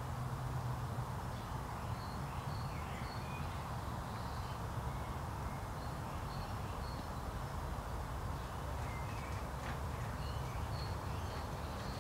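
Small garden birds giving short, faint high chirps in scattered groups over a steady low background rumble.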